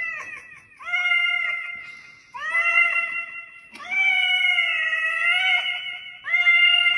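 Calico cat meowing into a toy karaoke microphone, the calls carried through the microphone's speaker: five long, drawn-out meows in a row, each about a second long with short breaks between.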